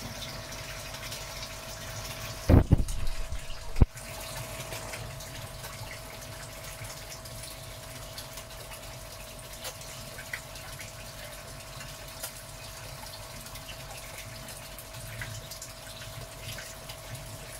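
Steady splashing of a stream of water pouring into a koi tank, with a faint steady hum under it. About two and a half seconds in comes a loud low rumble lasting about a second, ending in a sharp knock.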